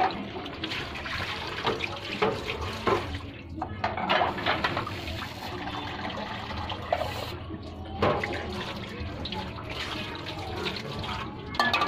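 Tap water running and splashing as a metal pot and a bowl are rinsed by hand, with scattered knocks and clinks of the dishes.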